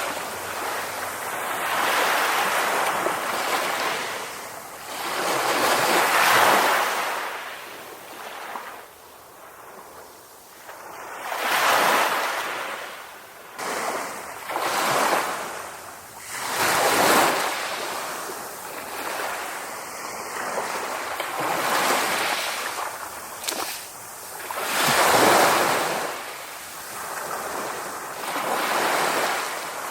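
Sea waves breaking on a beach, one surge after another every few seconds, each swelling up and washing back down.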